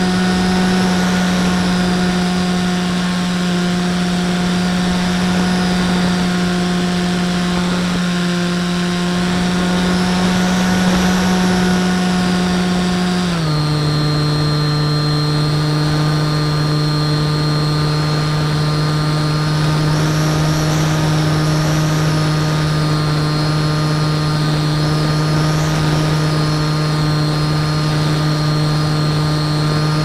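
Bixler 2 RC plane's brushless electric motor and pusher propeller running at steady speed, a steady whine heard from a camera riding on the plane. About 13 seconds in the pitch drops suddenly to a lower steady note as the motor slows.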